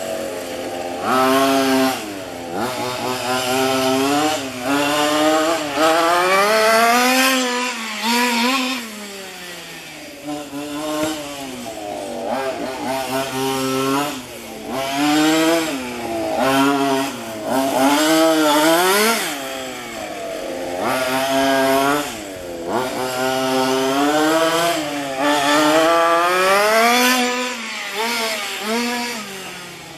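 1:5 scale FG radio-controlled car's small two-stroke petrol engine revving up and down over and over, its buzzing pitch rising on the throttle and falling off every few seconds as the car accelerates and slows around the track.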